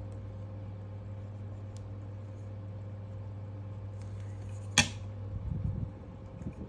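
Steady low mechanical hum with one sharp click a little under five seconds in, followed by a few uneven low knocks as the hum fades.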